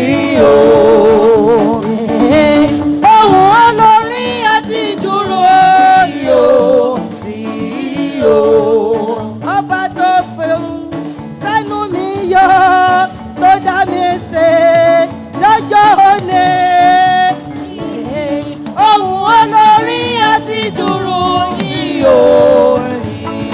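A woman singing a Yoruba gospel praise chorus with a wavering vibrato, over musical accompaniment.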